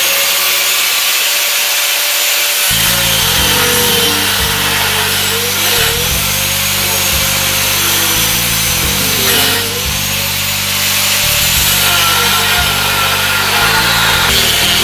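Handheld angle grinder cutting steel plate, a continuous high whine over a rasping hiss. The motor's pitch sags and recovers several times as the disc bites into the metal.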